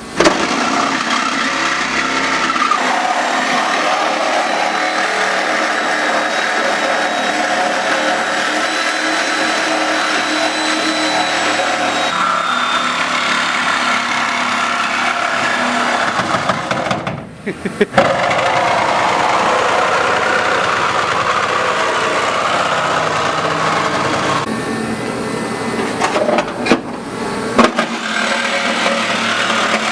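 A vehicle engine running steadily, cut off abruptly twice.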